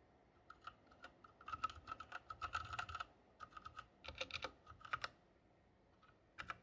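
Typing on an Ajazz AK40S mechanical keyboard: quick runs of key clicks from about half a second in to about five seconds, then a pause and a couple more presses near the end.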